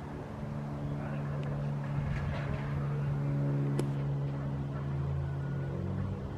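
Car engine and road noise heard from inside a moving vehicle: a steady low hum.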